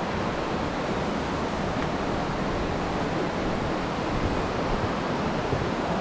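Steady rushing of flowing river water, an even hiss and rumble with no breaks.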